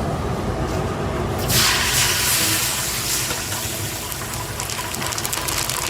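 Cooking in a large commercial biryani pot: over a low steady rumble, a loud hiss starts suddenly about a second and a half in and carries on with fine crackling, as when ingredients or liquid go into the hot pot.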